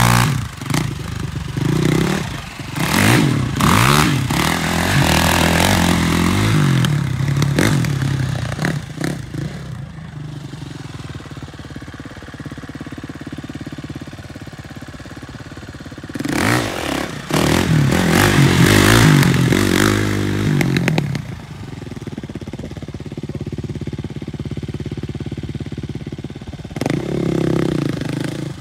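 Sport quad ATV engine revving up and down hard as the rider spins the rear wheels in dirt, doing donuts and burnouts. The loudest revving comes in the first several seconds and again for a few seconds past the middle, with the engine lower and steadier in between and toward the end.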